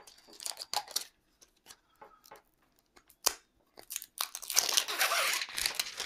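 Handling noise from the smart lock's plastic front unit: scattered light clicks and taps, with one sharp click about three seconds in, then about two seconds of loud, dense rustling near the end.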